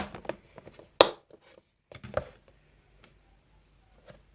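Small objects being handled and set down on a surface: a few sharp knocks and clicks, the loudest about a second in, followed by a brief drop to silence.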